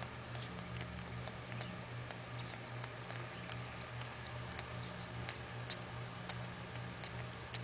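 Newborn Yorkshire terrier puppies suckling at their mother's teats, making small, irregular wet clicks and smacks over a steady low hum.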